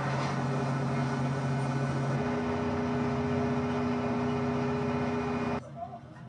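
Train running noise heard from on board a moving passenger train: a steady rumble with low droning tones that step up in pitch about two seconds in. It cuts off suddenly near the end, leaving a much quieter background.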